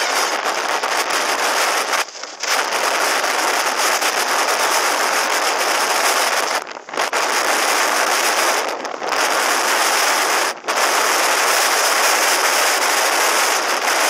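Wind rushing over the microphone of a motorcycle moving at highway speed: a loud, steady hiss, broken by four brief lulls.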